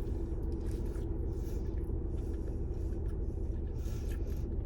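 Steady low rumble with a faint steady hum inside a car, typical of a vehicle's engine or ventilation running while parked.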